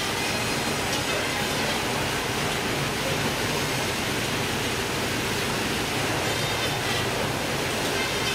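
Fish-processing machinery and its plastic conveyor belts running, a steady, even mechanical noise.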